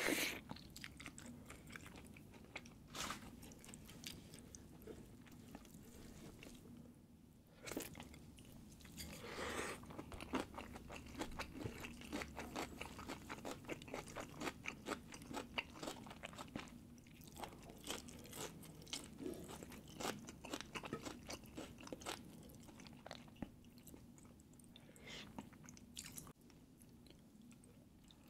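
Close-miked eating sounds: a person chewing and biting food, with a steady run of small wet clicks and crunches, busiest through the middle.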